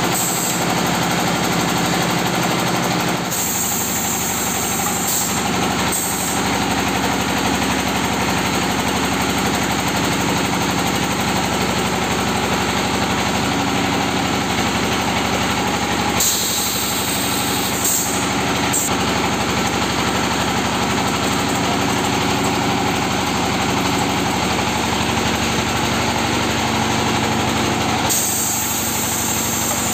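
Red-brick press machine running steadily, a continuous mechanical drone whose tone shifts about three seconds in, around the middle and near the end, with a hiss added at those points.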